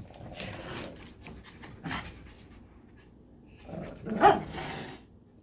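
Puppy yipping and whimpering while it plays, with scuffling through the first half and a louder yip about four seconds in.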